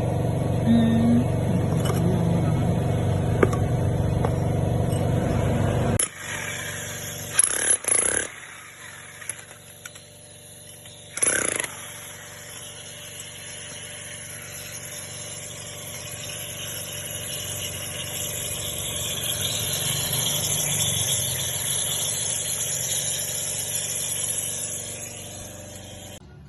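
A motor running steadily, cutting off abruptly about six seconds in. A few knocks follow, then a quieter steady hum.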